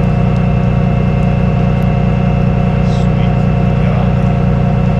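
Tow truck engine running steadily: a constant low hum with a few steady higher tones over it.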